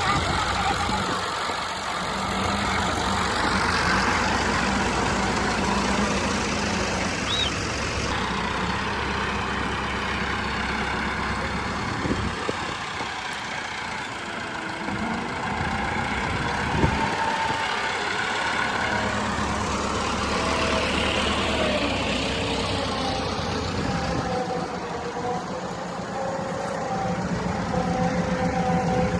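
Combine harvester running steadily while threshing wheat: a diesel engine drone under the rushing noise of the machinery, with a couple of brief knocks.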